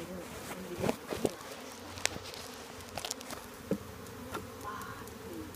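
Honeybees buzzing steadily in a swarm around an open hive, with a few sharp clicks and knocks between about one and four seconds in as wooden hive frames are handled.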